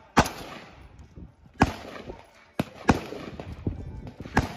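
Gunshots at a shooting range: about five sharp reports at irregular intervals, some louder than others.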